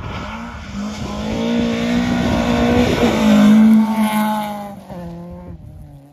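A Volvo saloon rally car passes at speed on a gravel stage. Its engine is held at high revs as it approaches and is loudest about four seconds in, then the note drops and fades as it drives away. Gravel hisses under the tyres throughout.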